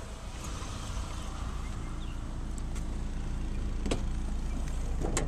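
Trunk lid of a 2009 Mitsubishi Lancer being handled and lifted open after its release has been pulled, giving two light knocks about four and five seconds in, over a steady low hum.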